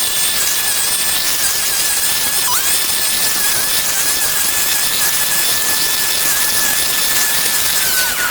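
Small petrol-engined garden power tool running at high speed with a steady high whine. Its pitch dips briefly about two and a half seconds in and again near the end, as if it bogs under load.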